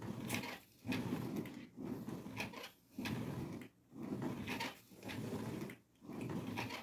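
Ab roller wheel rolling on a tiled floor, a rumbling that comes in a run of strokes about a second apart with brief gaps between them.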